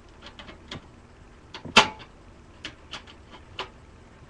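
Screws being tightened down with a screwdriver into a desktop computer's hard drive mount: scattered small clicks and ticks, with one sharp, louder click a little under two seconds in.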